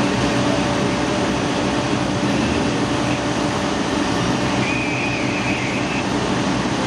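Steady drone of fire apparatus engines running and pumping water, a constant hum under a broad rush of noise. A faint wavering high tone comes in briefly about two-thirds of the way through.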